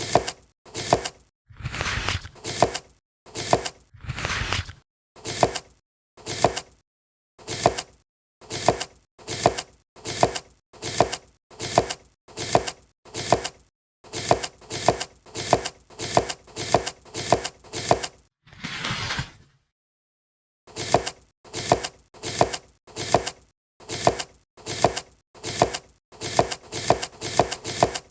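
Kinetic sand being sliced, a run of short crisp cuts about two a second with dead silence between them. Two longer crunching strokes come a couple of seconds in, and another about two-thirds of the way through.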